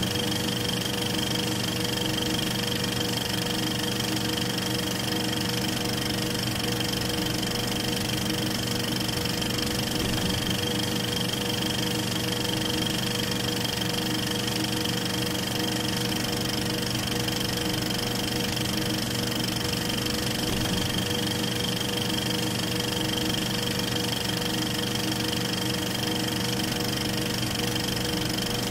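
Steady mechanical whirr and clatter of a movie projector running, with a constant motor hum; it does not change as the picture cuts, so it is the projector playing silent home-movie film rather than sound from the scene.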